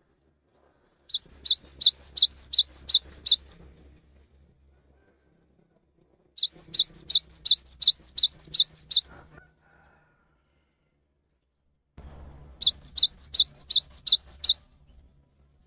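Cinereous tit (gelatik batu) singing loudly: three phrases of rapidly repeated high, down-sweeping whistled notes, about four a second, each phrase two to three seconds long with short pauses between.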